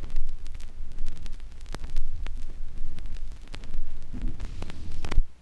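Low rumble with scattered clicks and crackle from the flexi-disc soundsheet's playback. It cuts off abruptly a little over five seconds in, leaving only a faint hum.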